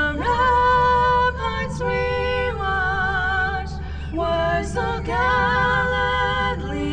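Music: a woman singing in phrases of long held notes with vibrato, over a steady low hum.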